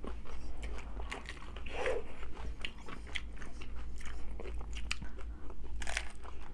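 Close-up biting and chewing of crunchy hard-shell tacos: a run of irregular, crisp crunches.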